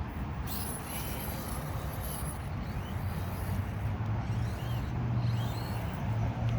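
Low engine rumble of a nearby motor vehicle, growing slowly louder, with a high hiss lasting about two seconds that starts about half a second in.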